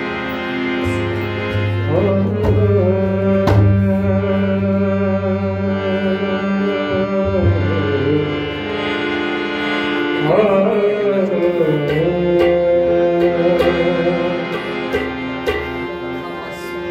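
Harmonium and tabla playing together, with a man's voice singing long, held notes that slide between pitches about 2 and 10 seconds in, over steady tabla strokes.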